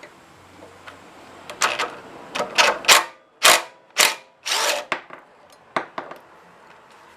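Cordless drill/driver spinning in about six short bursts, backing out the bolts that hold a small engine's ignition coil, with a few small clicks of handling before and after.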